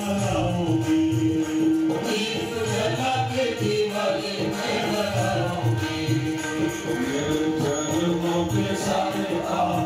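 Devotional Hindu bhajan music: singing with instrumental accompaniment and percussion over a sound system, steady in loudness throughout.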